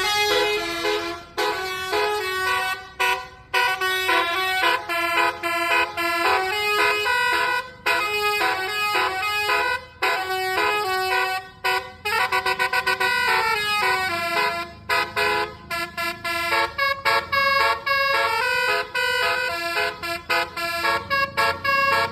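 Basuri 'telolet' bus horn, a multi-trumpet musical air horn, playing a fast melody of short stepped notes, several tones sounding together, with brief breaks between phrases.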